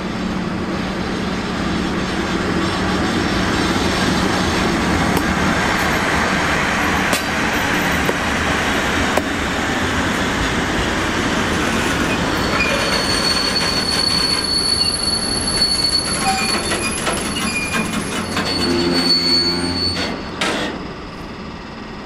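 Freight train rolling past behind an SBB Cargo electric locomotive: a steady rumble of wagon wheels with a low hum at first and a few sharp clacks. From about halfway a high, steady wheel squeal rises over it as the tank and sliding-wall wagons go by.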